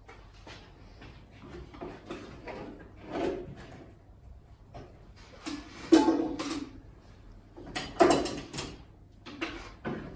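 Knocks and clatter of kitchen utensils, a tray and a pot being handled on a table, in separate bursts, the loudest about six and eight seconds in.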